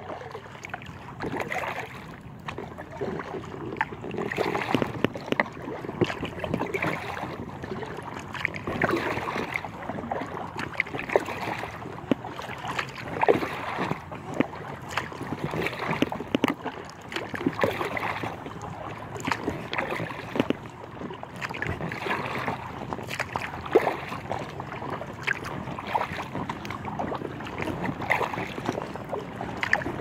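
Kayak paddle strokes dipping and splashing, with water lapping against the hull of an inflatable kayak in irregular splashes.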